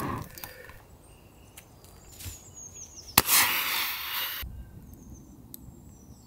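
A survival match struck with a sharp crack, then flaring with a loud hiss for about a second.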